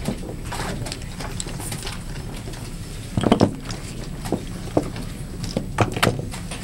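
Plastic chess pieces knocked down on a board and a chess clock's buttons pressed during fast blitz play: a string of sharp clicks and knocks, loudest in a cluster about halfway, with a few single taps after it, over a steady hall background.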